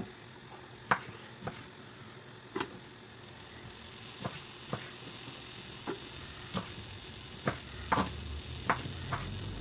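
Kitchen knife chopping orange pieces on a wooden cutting board: about a dozen irregular knocks of the blade against the board. A faint steady high-pitched whine runs underneath.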